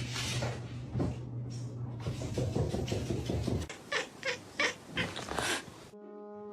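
A cat giving a long, low, steady growl for about three and a half seconds, followed by a run of short sharp taps or knocks.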